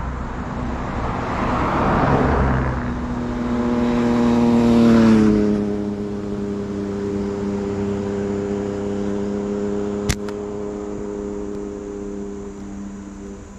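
Cars passing on the road. The last one's engine drone drops in pitch as it goes by about five seconds in, then holds steady as it draws away. A single sharp snap about ten seconds in is a slingshot shot.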